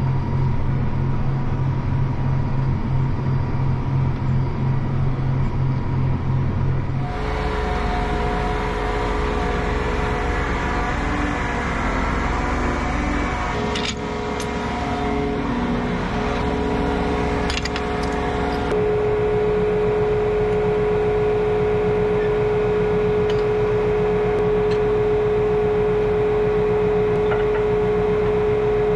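John Deere 8270R tractor engine running steadily under load, heard from inside the cab. After a cut, the tractor runs on behind the hitch, with a few sharp metal clinks as the chisel plough is coupled to the three-point linkage. A steady whine joins about two-thirds of the way through.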